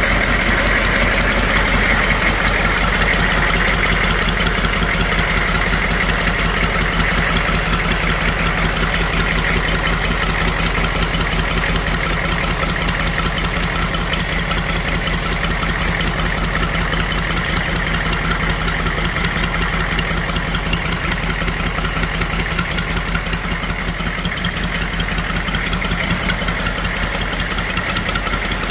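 Humvee M1097's 6.2-litre diesel V8 idling steadily with a fast, even knock, freshly started on a fuel injection pump just rebuilt with a new kit.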